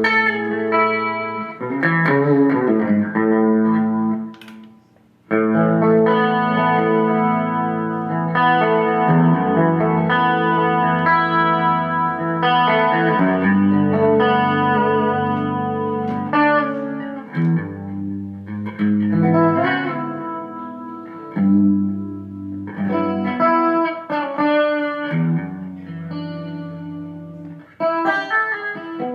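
Electric guitar played through a Zoom G3Xn multi-effects pedal: chords and single-note lines left to ring, with a brief stop about four seconds in before the playing resumes.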